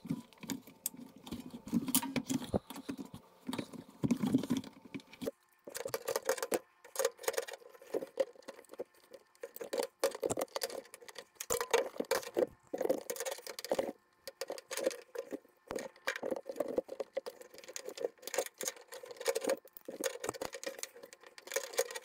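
Pliers working a hose clamp onto the drain spout of a front-load washer's rubber door gasket: irregular small metal clicks mixed with rubbing and creaking of the rubber as it is handled. The handling gets busier from about six seconds in.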